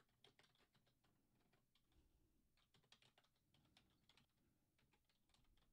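Very faint computer keyboard typing: uneven runs of quick keystrokes with short pauses between them.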